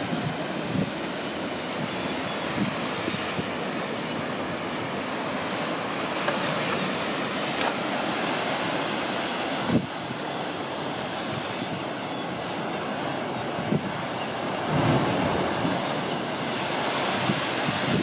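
Sea surf breaking and washing around coastal limestone rocks, a steady rushing noise that swells a few times. Wind buffets the microphone now and then with short low thumps.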